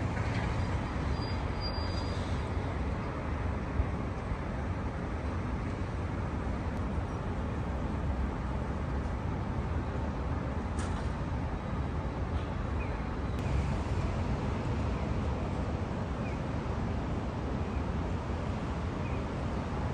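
Steady city road traffic noise from the streets below, a continuous low rumble of passing vehicles.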